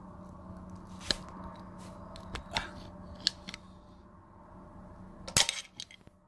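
A few sharp metallic clicks and taps, the loudest about five seconds in, as a metal pick knocks against the valve springs and retainers in an open BMW N62 cylinder head, over a faint steady hum.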